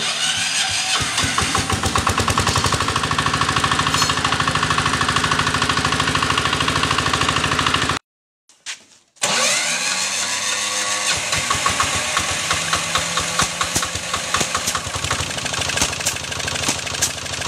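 Small diesel engines of portable water-well drilling rigs running with a fast, even knock, in two stretches split by a brief silence about eight seconds in. The second stretch opens as an engine is electric-started and catches, then runs on steadily.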